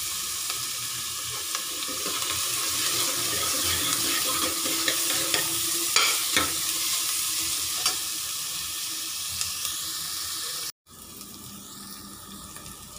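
Sliced onions sizzling in hot oil in a pressure cooker, stirred with a steel ladle that scrapes and clicks against the pot now and then. The sound cuts out for a moment near the end and comes back quieter.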